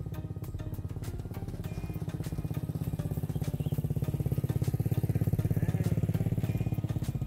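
A small engine running with a fast, even pulsing. It grows steadily louder and then cuts off suddenly near the end, with background music under it.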